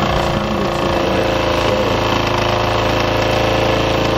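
Mamod SP4 live-steam toy engine running steadily, its single oscillating cylinder beating out a rapid, even exhaust rhythm with a steady hum.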